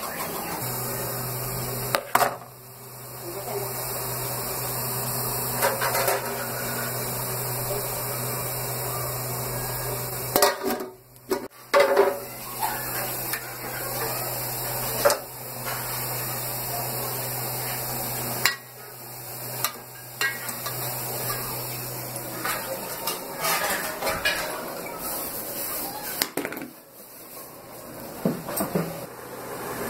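Steel cooking pots and plates knocking and clinking against each other now and then, over a steady hiss and a low hum.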